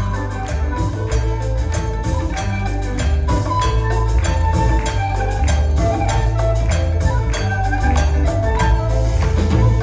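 A music ensemble playing Peruvian music, with a heavy bass line, a melody of struck or plucked notes, and regular percussion strikes.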